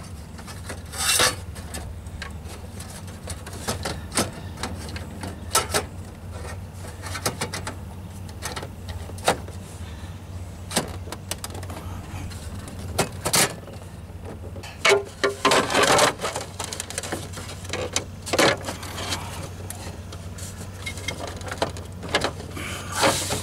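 Handling noise from a car stereo head unit being pushed into its dash opening and its wiring tucked in behind: scattered clicks and knocks of the metal unit against the dash, with bursts of scraping and rubbing, the loudest about two-thirds of the way through and again near the end. A steady low hum runs underneath.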